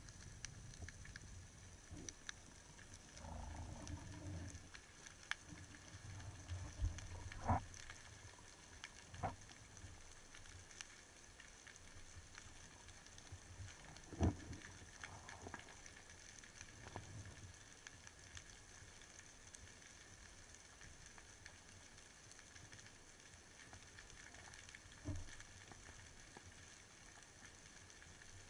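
Muffled underwater ambience: a faint steady hiss with low rumbles in the first few seconds and a handful of sharp knocks and clicks, the loudest about halfway through.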